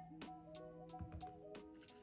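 Quiet background music: held notes over a light, regular beat.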